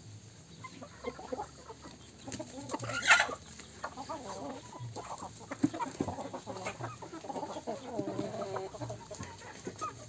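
A flock of chickens clucking in short, irregular calls while foraging, with one louder, sharp sound about three seconds in.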